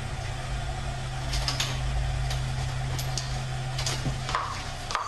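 Hotel room door being opened: several short clicks and rattles of the handle and latch over a steady low hum.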